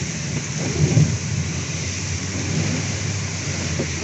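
Heavy rain beating on a moving car's windscreen and roof, heard from inside the cabin, with a low rumble that swells about a second in.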